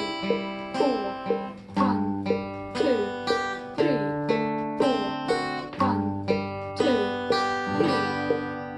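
Acoustic guitar played in a steady rhythmic picking pattern of chords, with the bass note changing about every two seconds.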